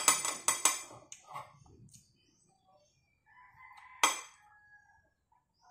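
A rooster crowing twice, once as the sound opens and again about four seconds in.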